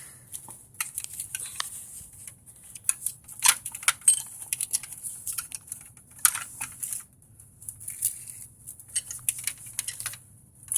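Scattered light metal clicks and clinks as a C-clamp is set on a brake caliper and screwed down to press the piston back into its bore.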